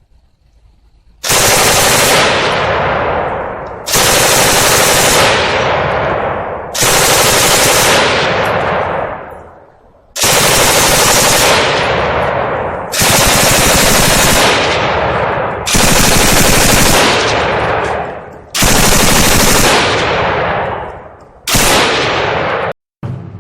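Light machine gun firing long sustained bursts of automatic fire, eight of them, each lasting a couple of seconds with a short echoing pause between.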